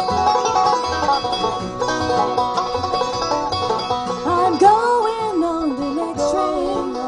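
Acoustic bluegrass band playing an instrumental break: rapid banjo picking over acoustic guitar and upright bass keeping the beat, with a fiddle melody full of slides coming to the front about four seconds in.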